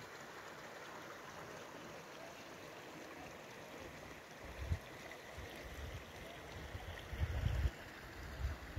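Steady rush of a running mountain stream, with a few low wind buffets on the microphone about halfway through and near the end.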